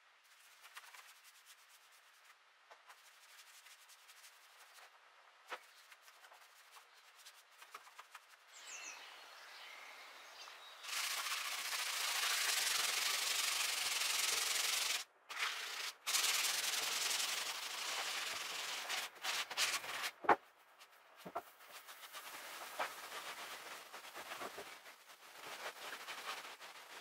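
Sandpaper rubbed by hand over oak strip flooring boards: a steady scratchy rubbing that starts about ten seconds in, stops briefly, then continues in separate strokes before fading to lighter, uneven rubbing.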